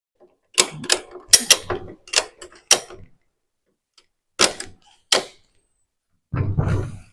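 Ratchet strap being cranked tight: a run of sharp metallic clicks and clacks from the ratchet handle, then a short rattle near the end as the strap pulls the frame down.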